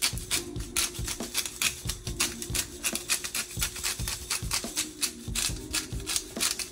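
Pepper grinder being twisted by hand, its mill cracking peppercorns in a quick, uneven run of clicks.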